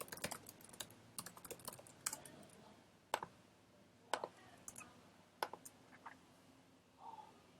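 Faint computer keyboard typing: a quick run of keystrokes, then a few separate clicks spaced about a second apart.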